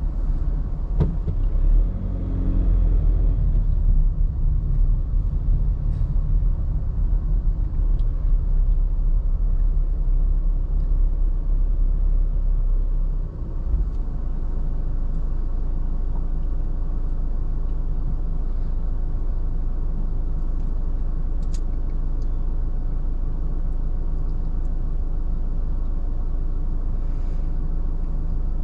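Low rumble of a car's engine and tyres heard inside the cabin while driving. About halfway through it drops to a quieter, steady hum as the car stands still at a red light, with a few faint clicks and rattles.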